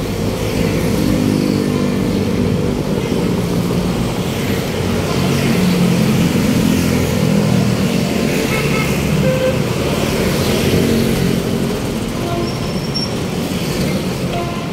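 Road traffic: vehicle engines running and passing, a steady loud hum with shifting engine tones.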